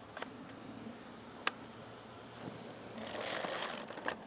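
Mamiya RZ67 Pro II medium-format camera being operated by hand: a single sharp click about a second and a half in, then a short scraping, ratcheting sound near the end.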